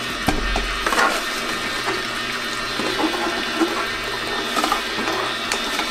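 Kuvings commercial slow juicer running with a steady hum, while a stream of liquid pours from its open spout into the plastic juice cup. There are a few light knocks, the first about a third of a second in.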